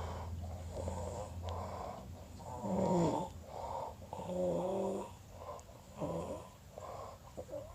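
A man snoring in his sleep: a run of rough, uneven snores in short bursts, loudest about three seconds in and again around four and a half seconds in, where they take on a low, droning tone.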